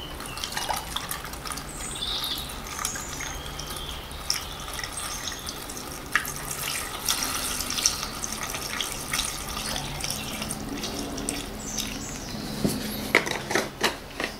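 Screenwash fluid pouring steadily from a plastic bottle through a funnel into a car's windscreen washer reservoir, with a few sharp knocks near the end.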